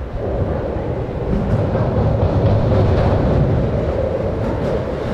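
Kintetsu train running on the elevated viaduct overhead: a loud, steady rumble with a droning hum that swells about a second in.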